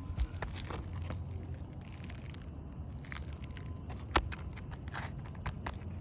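Irregular crunching and scraping on asphalt roof shingles, with a single sharp knock about four seconds in, over a steady low rumble.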